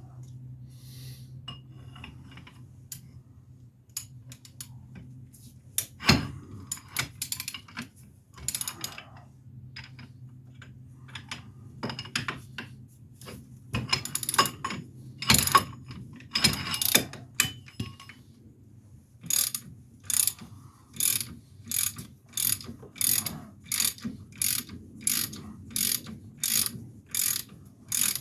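Hand ratchet wrench clicking as it is worked on a bolt: irregular bursts of clicks at first, then steady back-and-forth strokes at a little over one a second for the last third. A low steady hum runs underneath in the first half.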